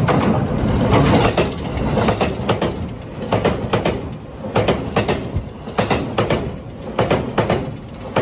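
JR 651 series electric train passing close by on an open-deck railway bridge: a loud running rumble with the wheels clacking over rail joints, the clacks often coming in quick pairs as each bogie crosses.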